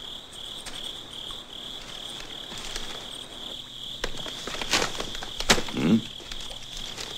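Crickets chirping in a steady pulsing rhythm, with paper rustling and a couple of sharp knocks about five seconds in as sheets and a stitched book are handled.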